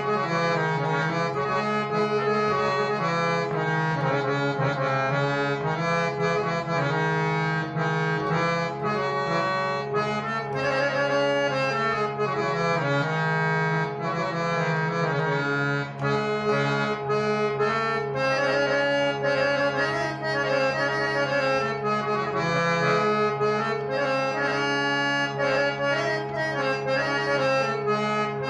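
Hand-pumped harmonium playing a melody in raga Kirvani over steady held low drone notes, its reeds sounding continuously.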